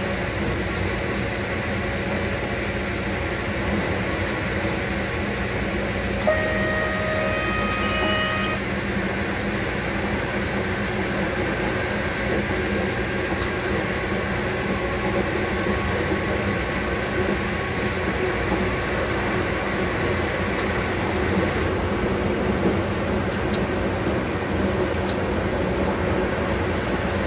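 Cab of an E652 electric locomotive at speed: steady running noise of the traction equipment and the wheels on the rails. A pitched tone sounds for about two seconds, around a quarter of the way in. The sound changes slightly near the end as the train enters a tunnel.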